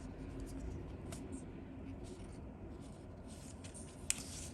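Faint rustling and light scratching of Pokémon trading cards being handled and slid against each other, with one sharp click about four seconds in.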